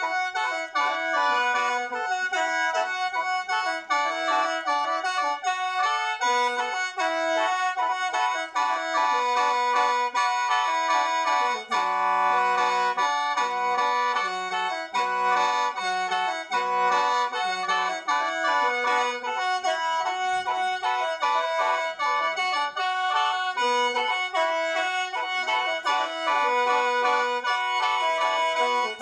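Lao khaen, the bamboo free-reed mouth organ, played solo: a quick, busy melody of short notes moving beneath several high notes held on as a steady drone.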